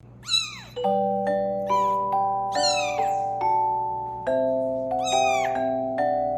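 A kitten meowing four times, short high calls that fall in pitch. Background music of struck, ringing notes comes in about a second in.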